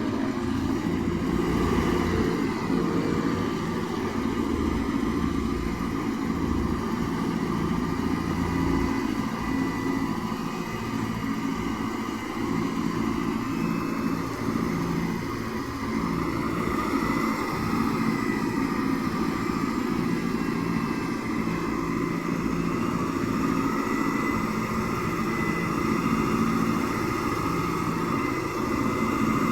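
Semi-truck engines running steadily, a continuous idling rumble with a few steady tones above it and no sharp blasts.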